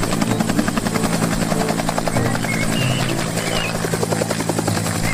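Bell UH-1 'Huey' military helicopter lifting off and climbing, its two-blade main rotor beating in a rapid steady chop over the turbine's hum.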